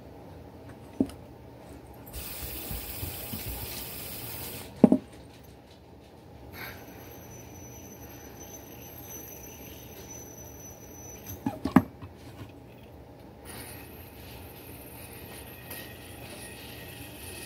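Fidget spinner being handled and flicked close to the microphone: several sharp clicks and knocks, loudest about five seconds in and again near twelve seconds, with a faint steady high whine in between.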